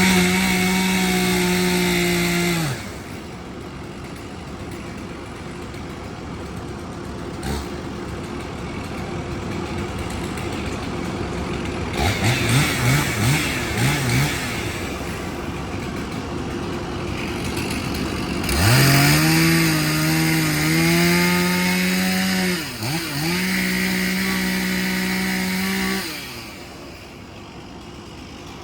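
Volvo EC140 excavator's diesel engine and hydraulics working. A strong pitched drone rises in sweeps and holds as the hydraulics take load, for a couple of seconds at the start and again for several seconds from about two-thirds of the way in. Between these the machine runs lower and rougher, with a spell of crackling.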